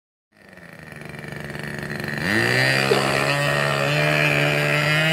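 Small engine of a radio-controlled model floatplane fading in, then rising in pitch about two seconds in and holding a steady note at high throttle as the plane runs across the water to take off.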